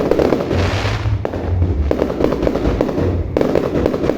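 Fireworks going off continuously: dense rapid crackling and low booms, with louder hissing bursts about half a second in and again near the end.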